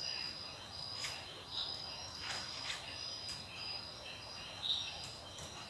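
Crickets chirping steadily in the background, a high pulsing trill, with a few scattered taps on a laptop keyboard.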